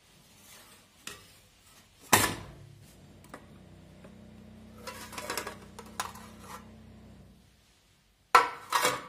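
Metal loaf tin and metal tongs knocking and clattering against a wire cooling rack as a baked cake is turned out of the tin: a sharp knock about two seconds in, a run of lighter knocks around five to six seconds, and louder clatter near the end.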